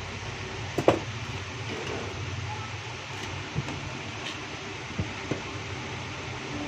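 Steady background hum with a few light knocks and clicks as tools and a cracked phone display are handled on a workbench; the sharpest click comes about a second in, with softer knocks later.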